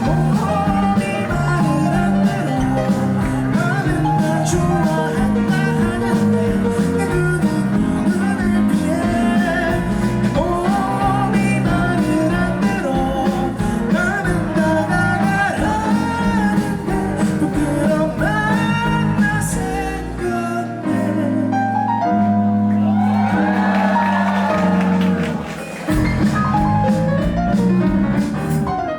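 Live rock band (electric guitar, drums, keyboard and bass) playing a song with a lead vocal, in a large hall. About twenty seconds in, the bass and drums drop away for a few seconds, leaving voice and keys, then the full band comes back in near the end.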